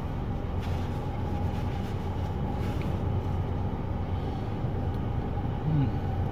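Steady low rumble of an idling truck engine, with a few faint clicks over it.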